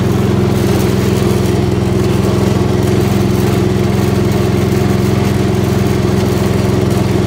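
Gravely 8163-B garden tractor's engine running at a steady speed while the tractor is driven across grass.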